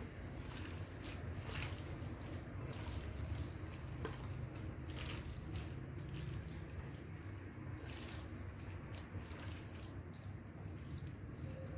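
Seafood filling being mixed in lemon juice and olive oil: soft wet squelching with irregular small clicks and crackles.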